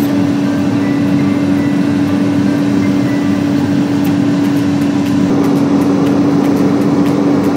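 Steady road and engine drone heard from inside a car's cabin at highway speed, with a constant low hum.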